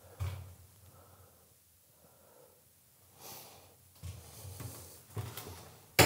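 A person breathing out heavily once, followed by a few soft, low thumps like steps or handling in a small echoing concrete room, and a sharp click near the end.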